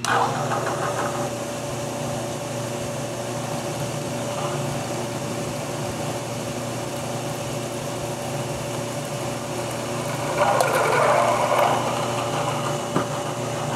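Milling machine spindle running at 650 RPM as a freshly sharpened half-inch twist drill cuts into aluminum plate. A steady motor tone is joined by a louder, rougher cutting noise for about two seconds near the end. The drill is cutting cleanly, the sign of a sharp drill.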